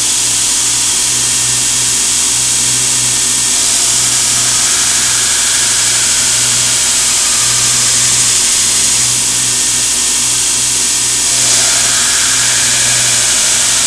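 Belt grinder running steadily, with a blade of CPM 15V powder steel ground against the moving abrasive belt for its flat grind from a few seconds in, giving a continuous grinding rasp over the motor hum.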